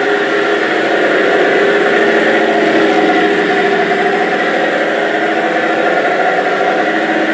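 Engine sound effect of a toy remote-control Maximum Destruction monster truck, a steady idling rumble played through the toy's small speaker, with no deep bass.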